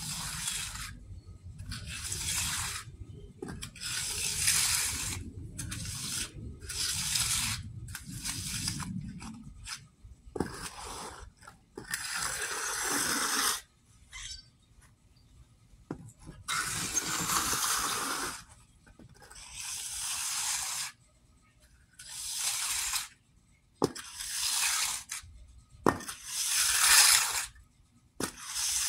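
Hand trowel scraping across a freshly poured wet concrete slab in repeated sweeping strokes, each about a second long, with short pauses between them that grow longer in the second half.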